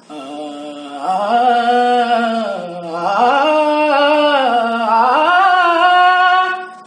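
A male voice singing one long, wordless held note in a Hindi song. It swells about a second in, then dips in pitch and climbs back twice before it stops near the end.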